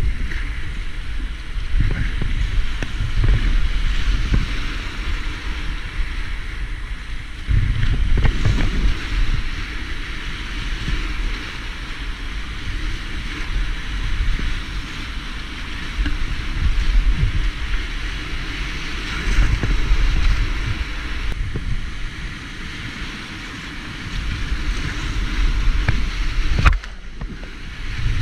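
Whitewater rapids rushing loudly around a kayak, heard from on the boat, with wind and spray buffeting the microphone in surging low rumbles and an occasional sharp knock.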